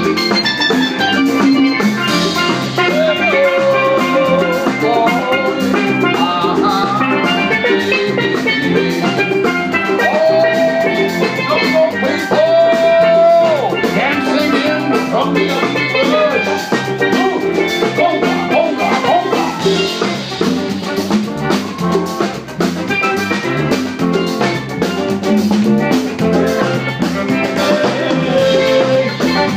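A live band playing with a steady beat, led by a steel pan struck with mallets, backed by drums and electric bass guitar.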